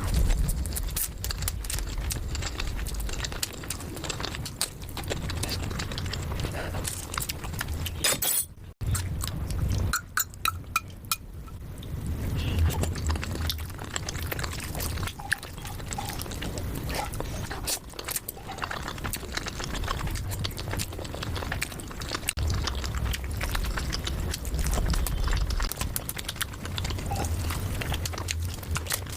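Close-miked eating: chewing and mouth sounds with many small wet clicks and smacks, over a low rumble, broken by a brief silence a little under nine seconds in.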